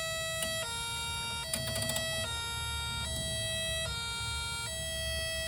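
Whelen Vortex siren's tone board sounding the hi-lo tone: a steady higher pitch and a lower pitch alternate, each held just under a second, with a buzzy electronic edge.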